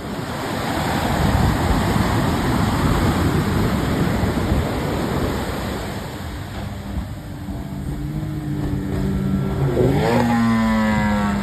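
A fishing boat's outboard motor runs under the rush of surf, then revs up sharply about ten seconds in and holds at a high, steady pitch as the boat drives in to land.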